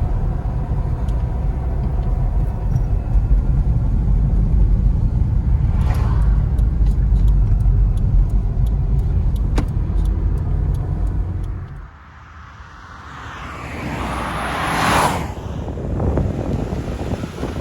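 Mitsubishi Galant VR4 on the move: a steady low drone of engine and road noise, with a few light clicks around the middle. About twelve seconds in the drone drops away and a car passes with a whoosh of tyres and wind that swells and fades.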